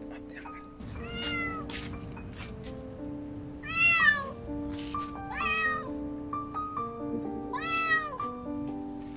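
A kitten meowing four times, about two seconds apart, each call rising then falling in pitch, the loudest about four seconds in: distress cries for help. Background music with held notes plays underneath.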